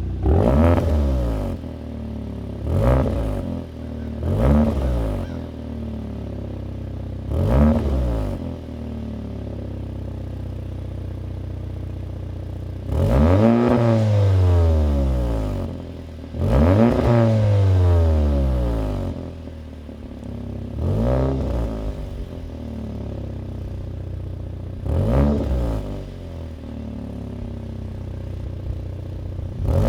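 VW Golf R's turbocharged 2.0-litre four-cylinder engine, breathing through an AWE SwitchPath cat-back exhaust, revved repeatedly from idle. Four quick blips come first, then several longer revs that rise and fall back to idle.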